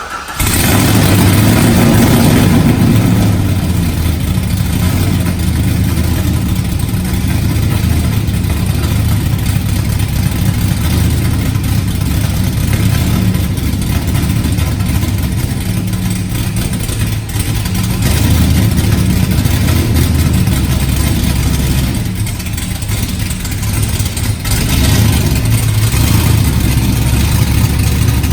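Car engine running with occasional revs, starting up suddenly right at the beginning.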